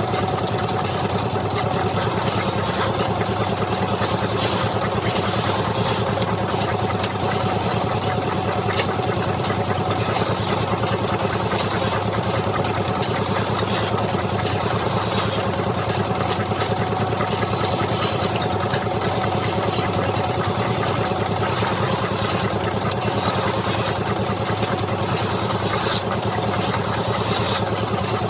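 Wood lathe running steadily: an even machine hum with a constant high hiss over it, unchanged throughout.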